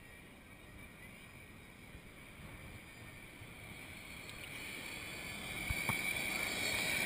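Water lapping and sloshing around a camera held at the sea surface, while the jet engines of an approaching four-engine Boeing 747 on final approach grow steadily louder, a high whine and hiss taking over in the last couple of seconds.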